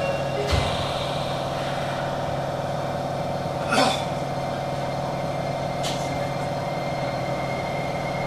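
Inside a Nagoya City Subway 6050 series car: a steady hum from the train with no rising or falling motor whine. There is a low thump about half a second in, a short hiss near four seconds, and a click around six seconds, after which a faint high steady tone sets in.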